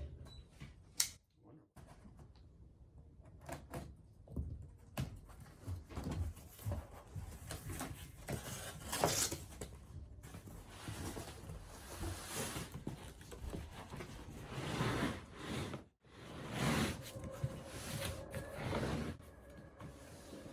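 Cardboard shipping box being handled and slid about: irregular scraping and rustling, with a sharp click about a second in.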